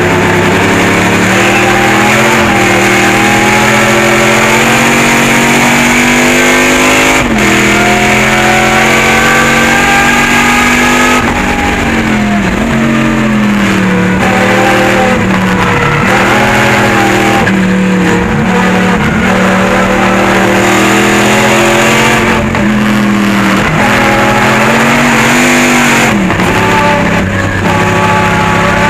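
Pontiac Firebird race car's V8 engine at racing speed, heard from inside the stripped cockpit. The engine note climbs steadily under throttle and falls off sharply a few times as the driver lifts, brakes and shifts for corners.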